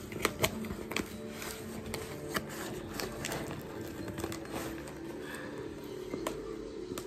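A cardboard shipping box being handled and opened by hand: scattered sharp clicks and rustles of cardboard and packaging, a few in quick succession near the start.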